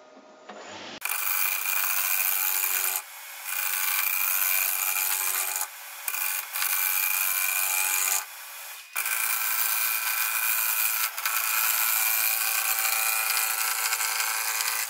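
Turning tool taking a coarse roughing cut on spalted beech blanks spinning on a wood lathe, knocking off the heavy wood and sharp corners. The cutting noise starts about a second in and breaks off briefly three times as the tool comes off the wood.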